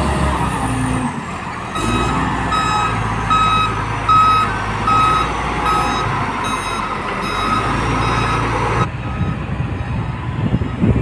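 LiuGong 848H wheel loader's diesel engine running, with its reversing alarm beeping steadily, about three beeps every two seconds, from about two seconds in. Near the end the beeping stops abruptly and an uneven low machine rumble takes over.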